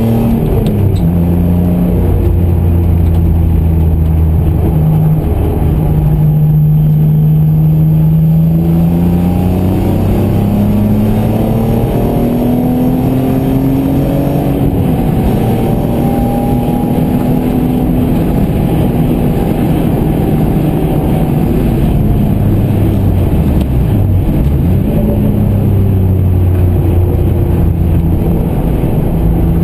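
BMW M3 engine, heard from inside the cabin at track pace, pulling through the gears: its pitch climbs, drops at each shift and climbs again. It eases off with a brief dip about three-quarters of the way through, over a steady rush of tyre and road noise.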